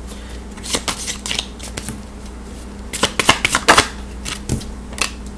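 Deck of oracle cards being shuffled by hand: quick runs of card clicks, a short one about a second in and a louder run around three seconds in.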